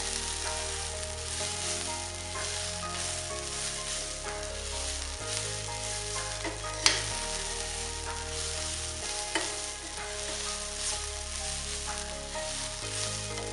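Methi fried rice sizzling in a pan as it is stirred, with a steady hiss and scraping strokes. Two sharp knocks against the pan, about seven and nine and a half seconds in; the first is the loudest sound.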